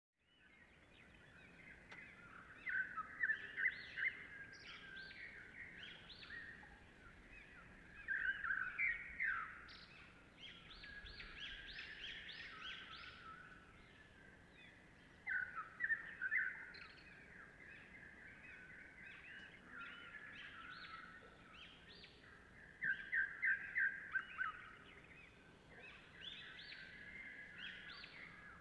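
Birdsong: several small birds chirping and trilling together, with four bursts of quick, louder chirps.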